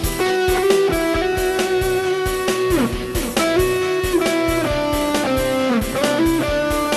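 Dangdut koplo instrumental break: an electric guitar plays a sustained lead melody with notes bent and slid between pitches, over a steady drum beat.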